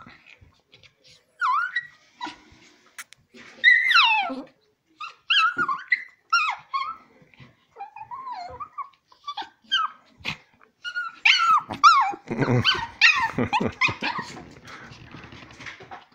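Dog vocalizing in play: a string of short, high whines and yips that slide down in pitch, then a louder stretch of growling about three quarters of the way through.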